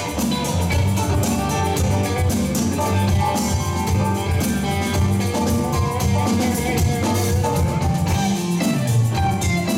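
Live band playing an instrumental passage: an electric guitar lead on a Telecaster-style guitar over bass, drums and hand percussion.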